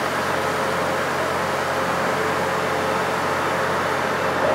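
DMG Mori CNC lathe tapping holes in a part with a live tool under flood coolant: a steady hiss of coolant spray over the machine's running, with a faint steady whine.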